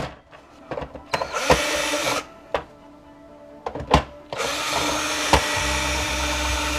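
Ryobi cordless drill/driver running to back screws out of a printer's plastic chassis: a short run about a second and a half in, then a longer steady run from about four and a half seconds on, with a knock just before it.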